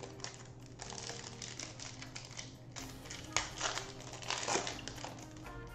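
Plastic wrapper of a trading card pack crinkling and crackling as it is torn open by hand, with the sharpest crackles a little over three seconds and about four and a half seconds in.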